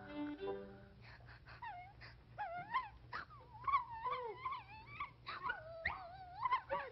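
A cartoon girl's voice sobbing and wailing: exaggerated crying in short gasping sobs and wavering whimpers that rise and fall in pitch, starting about a second in as a violin phrase fades out.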